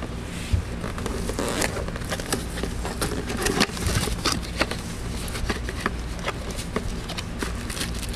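Hands rummaging through packaging while unpacking radio accessories: irregular clicks, scrapes and crackles of handling, over a steady low hum.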